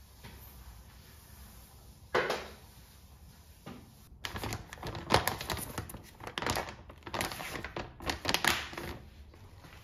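A single sharp knock about two seconds in, then several seconds of crinkling and clicking as a soft plastic wet-wipe pack is handled and wipes are pulled out through its flip-top opening.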